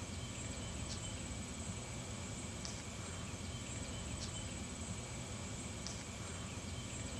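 Insects calling outdoors: a short high chirp repeats about every second and a half over a faint steady high trill, with a steady low rumble underneath.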